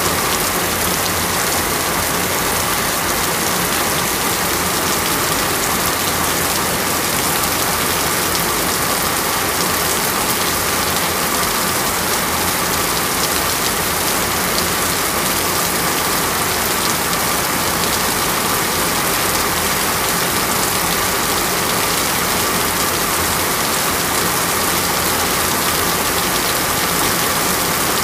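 Heavy rain falling, a loud, steady, even hiss with no let-up.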